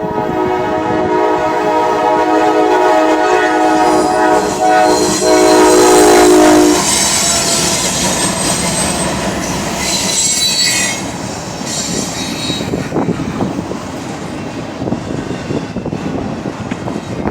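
Norfolk Southern freight locomotive's air horn sounding one long chord for about seven seconds, then cutting off. The train's cars roll past after it, with wheel squeal about eight to eleven seconds in and a steady rail clatter.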